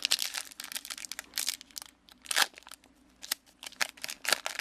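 Trading card booster pack wrapper being crinkled and torn open, a string of sharp irregular crackles with a few louder rustles.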